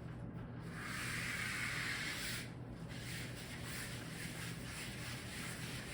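Rubbing on a chalkboard: a soft scraping hiss for about a second and a half near the start, then fainter scraping, over a steady low electrical hum.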